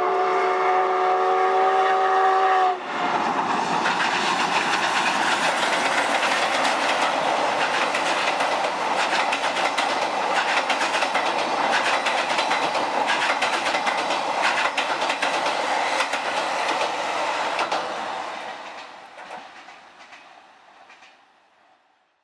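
The steam whistle of JNR Class C57 180 sounds a steady chord of several notes and cuts off about three seconds in. Then the steam train rolls across a steel girder bridge, a loud, even rumble and clatter of wheels on the rails that fades away over the last few seconds.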